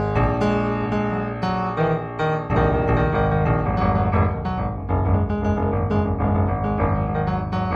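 Improvised solo piano music: a steady run of struck notes over held low bass notes.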